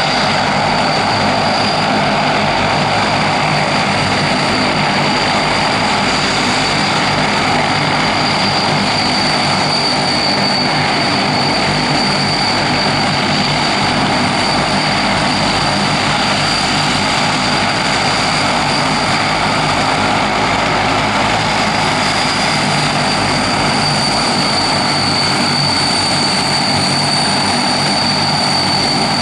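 Aircraft engines running steadily and loudly, an even rushing noise with a steady high whine over it.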